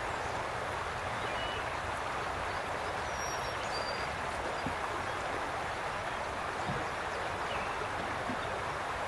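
Steady outdoor background hiss with no distinct events, and a few faint, short, high chirps of birds about three to four seconds in.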